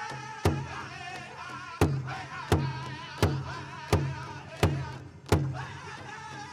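Powwow big drum and singers performing a Chicken Dance song: high wavering voices over a fast steady drumbeat. Seven loud accented drum strikes land about two-thirds of a second apart, from about half a second in until about five seconds in, and then the even drumming resumes.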